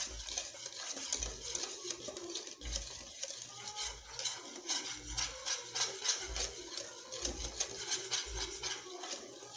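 Wire whisk scraping around an aluminium saucepan in quick, continuous strokes, stirring a thickening milk-and-flour white sauce, with a soft low thump about once a second.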